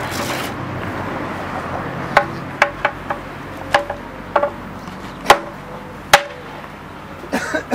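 Hammer blows on the iron rim of a wooden cart wheel: about a dozen irregular strikes, starting about two seconds in, each with a short metallic ring.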